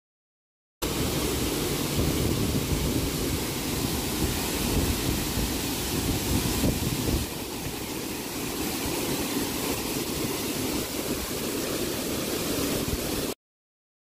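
Waterfall: a steady rush of falling water with a deep rumble, starting and stopping abruptly. About seven seconds in it turns a little quieter, with less low rumble.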